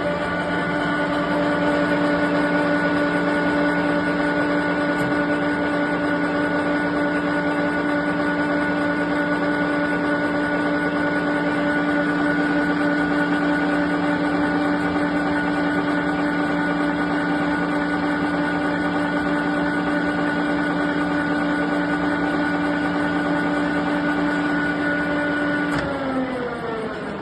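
Pfauter RS00 gear hobbing machine running: a steady mechanical whine made of several held tones. About 26 seconds in there is a click and the whine falls in pitch as the machine winds down.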